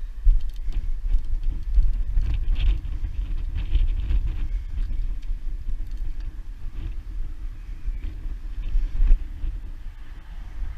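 Wind buffeting the microphone: a low, unsteady rumble, with a few faint ticks about two to four seconds in.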